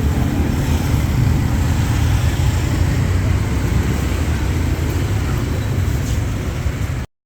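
Busy street ambience: a steady rumble of road traffic, with the low end strongest. It cuts off suddenly near the end.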